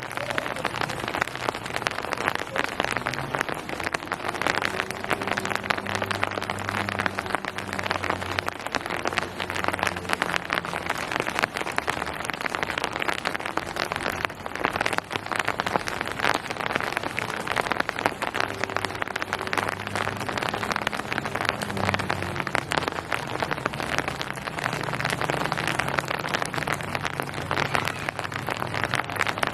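Steady rain pattering on surfaces, a dense hiss of countless fine drops. A low hum rises and fades twice in the background.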